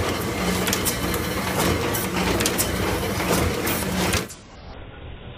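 Kluge platen press running a foil-stamping job on envelopes: steady mechanical clatter with repeated sharp clicks and knocks from the feeder and platen. About four seconds in the sound drops suddenly to a quieter, duller version of the same running.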